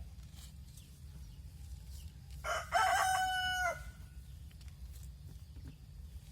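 A rooster crowing once, a single call of about a second held on one pitch and then dropping away at the end.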